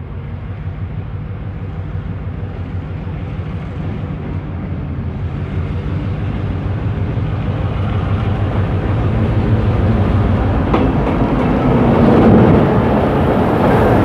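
EMD G22 diesel-electric locomotive running light toward the listener, its diesel engine's steady hum growing louder until it passes close by near the end.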